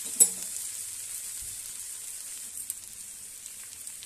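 Mixed vegetables sizzling in an aluminium kadai on a gas stove, a steady hiss that fades slowly. A single sharp click about a quarter second in.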